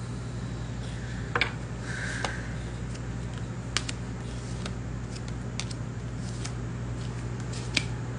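A deck of cards being shuffled by hand: a handful of sharp clicks and a brief rustle as the cards are handled, over a steady low hum.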